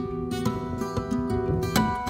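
Background music: acoustic guitar, plucked and strummed, a run of short notes changing every few tenths of a second.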